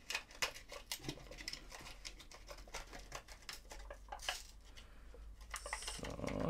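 Plastic blister pack with a cardboard backing being worked open by hand to free a wobbler, a run of small irregular clicks and crinkles, with a short louder scrape near the end.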